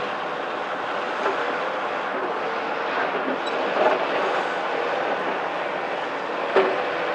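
CAT 374F excavator's C15 ACERT diesel running steadily under working load, with a faint steady whine, as its attachment works concrete rubble. A few sharp knocks of rubble and steel stand out, the loudest about four seconds in and near the end.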